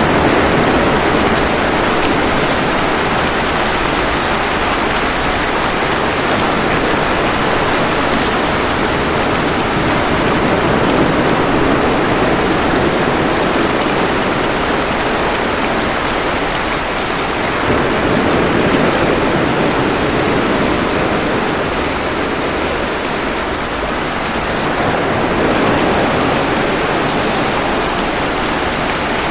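Steady rain mixed with ocean waves washing ashore, the surf swelling and falling back every several seconds.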